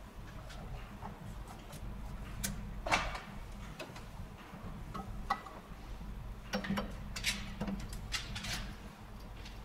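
Scattered clicks and light knocks of hand tools on metal, the loudest about three seconds in, over a steady low hum.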